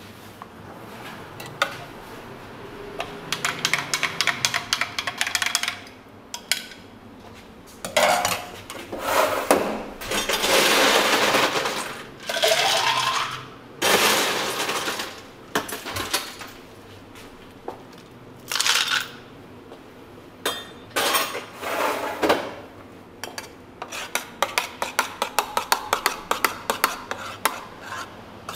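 Barista bar work: glasses and metal utensils clinking and clattering, with longer clattering stretches in the middle. Near the end comes a quick run of small clinks from a spoon working in a stainless steel milk pitcher.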